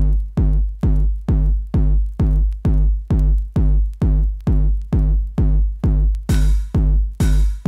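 Acid techno from a 1992 vinyl record: a heavy drum-machine kick drum beating a steady four-on-the-floor pulse, about two beats a second. About six seconds in, a hissing cymbal-like hit joins on every other beat.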